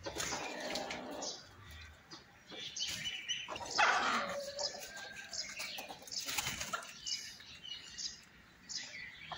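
Chickens flapping their wings in several short bursts, the loudest about four seconds in, with brief high calls from the birds between them.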